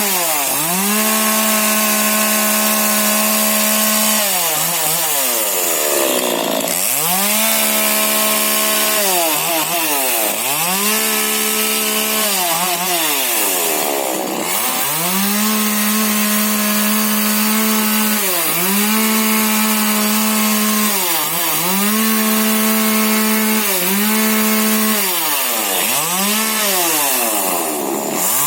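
Husqvarna 125 40cc two-stroke chainsaw running at high revs in repeated bursts, the pitch dropping away and climbing back up about ten times as the throttle is eased and squeezed again while cutting shrub branches.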